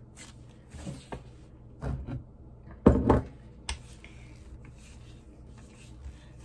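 Knocks and bumps of gloved hands and a wooden rolling pin working bread dough on a cutting board: a few scattered knocks, the loudest pair about three seconds in, then quiet rolling.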